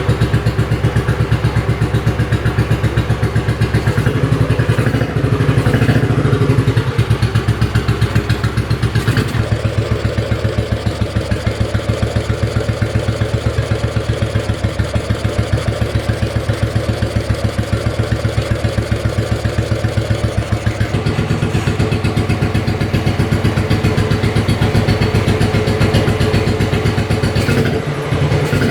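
A 1953 NSU Max 250's single-cylinder four-stroke engine idling cold, with a fast, even exhaust beat. The engine speed shifts slightly a few times.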